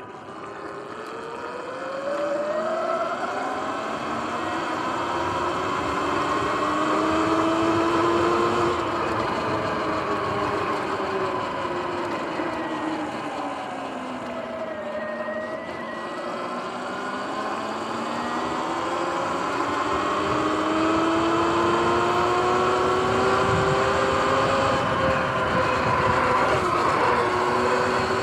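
Sur-Ron X electric dirt bike's motor and drivetrain whining in several pitched tones that climb as it speeds up, drop as it slows around the middle, then climb again, over a steady rushing noise.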